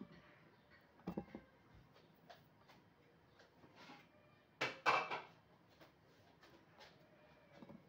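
Scattered knocks and clatter of kitchen things being handled, with a couple of knocks about a second in and a louder cluster of clunks about five seconds in.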